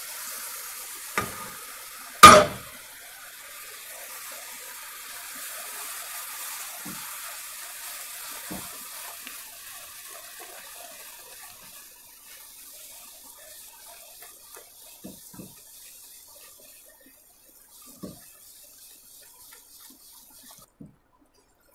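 Hot one-thread sugar syrup sizzling and bubbling in ghee-roasted flour in a non-stick frying pan as a silicone spatula stirs it; the hiss slowly fades and stops near the end. A sharp knock about two seconds in is the loudest sound, and a few light knocks of the spatula against the pan follow.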